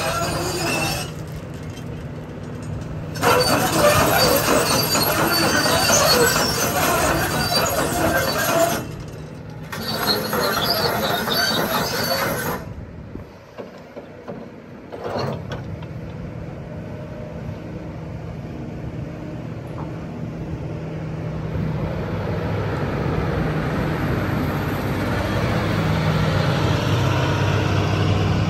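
Kobelco SK350-8 excavator travelling on steel crawler tracks, the track links clanking and squealing loudly, with two short breaks. After about 13 seconds the sound changes to the diesel engine running with a steady low hum, which grows gradually louder over the last several seconds as the boom works.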